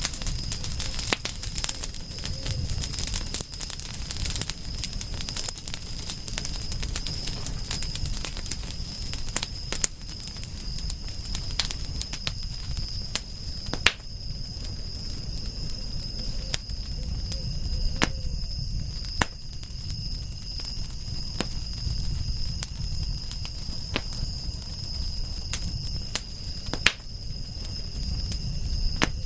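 Campfire burning and crackling: frequent sharp pops and snaps over a low steady rumble of flames, with a steady high-pitched whine running underneath.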